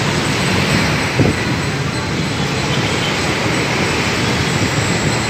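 Steady rumbling noise of an LRT Line 1 light-rail train running on the elevated track, with a single short knock about a second in.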